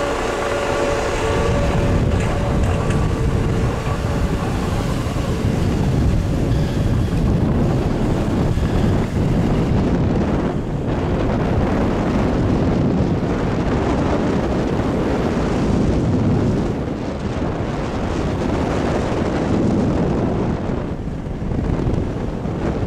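Steady wind rushing over the microphone of a camera carried by a skier moving fast down a groomed run, mixed with the hiss of skis on the snow.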